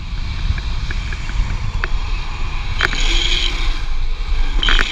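Downhill longboard at speed: wind buffeting the microphone and urethane wheels rolling on asphalt, with brief higher-pitched wheel squeals about three seconds in and again near the end as the board is pushed through a corner.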